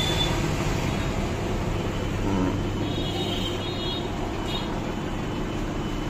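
Steady low background rumble and hum, with a few faint high-pitched tones in the middle.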